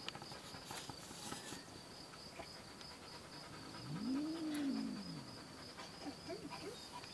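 A cat meowing once about four seconds in: a single low call that rises and falls over about a second and a half. Behind it runs a faint, steady, high pulsing chirr like a cricket.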